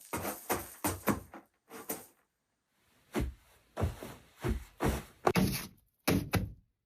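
Foley sound effects: a quick, even run of short knocks, then after a pause five slower, heavier thuds about half a second apart, ending in a few abrupt cut-off hits.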